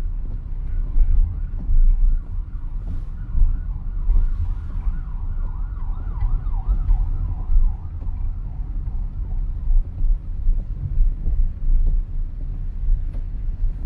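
An emergency vehicle's siren wails in a fast up-and-down warble. It grows louder, then fades and drops a little in pitch about eight seconds in, over a steady low rumble of traffic and road noise.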